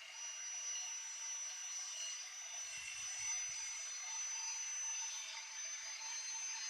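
Electric cut-off saw, rigged as a table saw, running at speed with a steady high whine that creeps slightly up in pitch.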